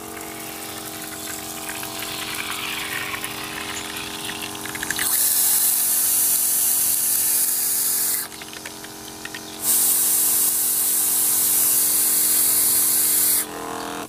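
Electric knapsack sprayer's pump humming steadily while its nozzle sprays the liquid back into the open tank to stir the mix, in two loud hissing spells of about three and four seconds. The hum stops near the end.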